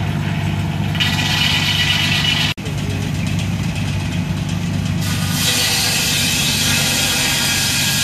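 36-inch circular sawmill blade ripping through a log, a hissing cutting noise that comes in about a second in and again from about halfway through, over the steady low drone of the engine driving the saw. A sudden brief dropout about two and a half seconds in.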